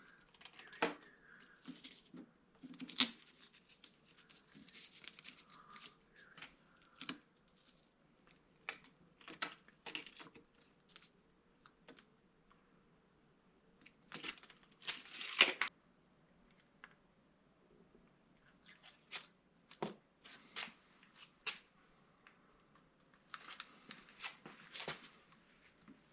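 Intermittent tearing and crinkling with scattered small clicks and knocks, as of hands handling material and small parts at close range.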